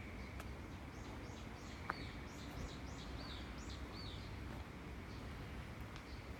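A small bird singing a quick phrase of about ten high, chirping notes that starts about a second in and stops around four seconds in, over a steady low background rumble.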